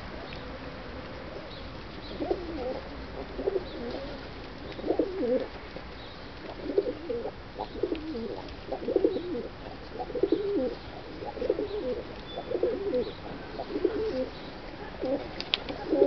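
Feral rock pigeons cooing: a run of low, wavering coos that starts about two seconds in and repeats every second or so.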